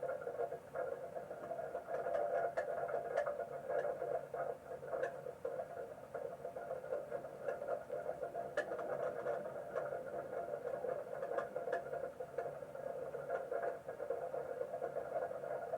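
Steady rain heard through a live-camera stream's audio: a thin, narrow-sounding hiss with scattered clicks.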